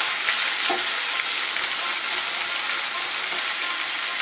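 Spice paste of cumin, ginger and green chilli sizzling steadily in hot oil in a non-stick frying pan, stirred with a spatula at first.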